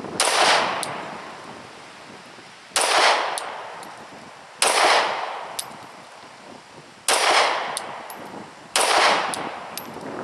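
Glock 22 .40 S&W pistol fired in slow aimed single shots, five in all about two seconds apart, each sharp report trailing off in a long echo.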